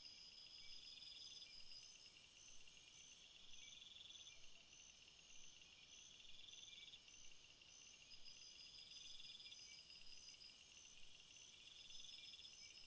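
Chorus of crickets and other night insects trilling together, several voices layered at once. A very high trill swells louder twice, while shorter chirps repeat about twice a second and a lower trill rises and falls every few seconds.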